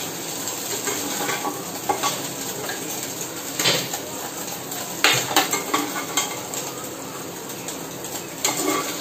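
Metal spatula scraping and clinking against an iron kadai while fried egg is lifted out, with hot oil sizzling steadily underneath. A handful of sharp clinks stand out a second or two apart.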